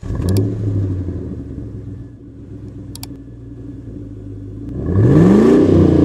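Car engine running at idle, then revved up and back down about five seconds in, the loudest part.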